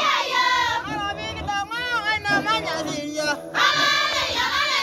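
Maasai welcoming song sung by a group of women and men together. Louder, higher phrases come at the start and again about three and a half seconds in, with quieter wavering singing between.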